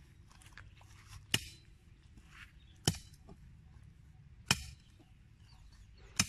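A metal digging tool striking hard, dry ground four times, about one sharp chop every second and a half.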